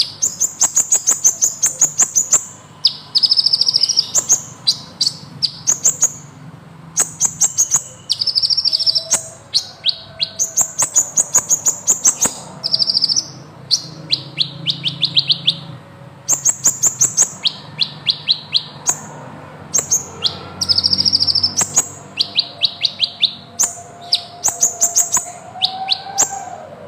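Sunbird ('kolibri ninja') singing a long run of rapid, high trills: phrase after phrase of fast repeated notes, each a second or two long, with short breaks between them.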